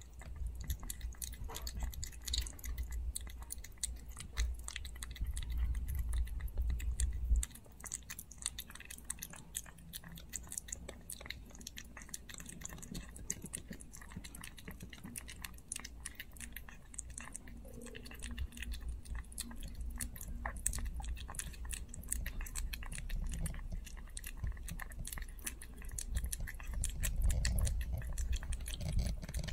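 A merle Chihuahua puppy eating canned pâté dog food from a plate: steady wet chewing and biting, made of many small rapid clicks. A low rumble comes and goes under it, in the first seven seconds and again in the second half.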